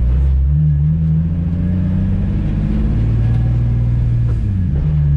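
Nissan 350Z's V6 engine running while the car drives, its pitch stepping up about half a second in and dropping near the end. The engine has just been rebuilt.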